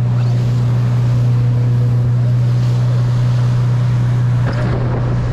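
Motorboat engine running steadily under way: a constant low drone, with wind and rushing water noise over it.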